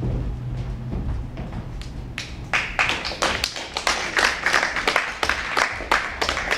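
The music's last low note fades away, then about two seconds in an audience starts clapping: sharp separate claps over a growing wash of applause.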